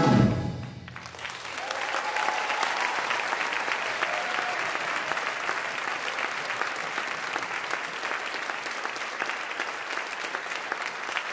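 Audience applauding: the last chord of the chorus and orchestra dies away at the very start, and from about a second in dense, steady clapping fills the rest.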